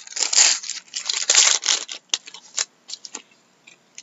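Foil trading-card pack wrapper torn open and crinkled by hand, loud for the first two seconds, then a few light crackles and clicks as the torn wrapper is pulled apart.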